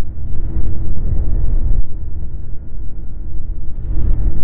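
Snowmobile travelling along a groomed snow trail: a loud, uneven low rumble, with two short hissing patches, about half a second in and near the end.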